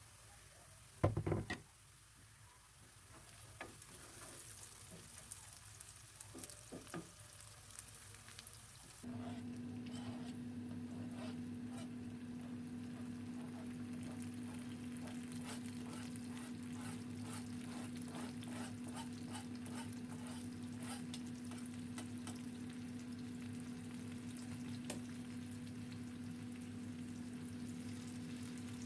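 Food frying in a pan, sizzling with crackling spatters, and a short loud knock about a second in. About nine seconds in a steady hum starts and runs on under the sizzle.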